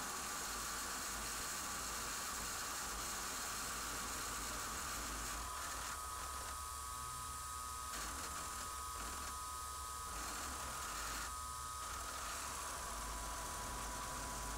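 Milling machine running a face mill across a metal anvil blank: a steady whirring hiss with a motor whine. A few times in the middle the cutting noise thins out, leaving the steady whine.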